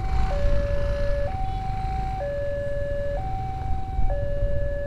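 Level-crossing warning alarm sounding a two-tone signal, switching between a higher and a lower tone about once a second, over a low rumble.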